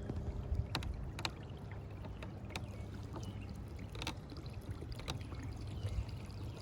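Kayak moving under an electric trolling motor at its third speed setting: water rushing along the hull over a steady low motor hum, with a few short sharp ticks.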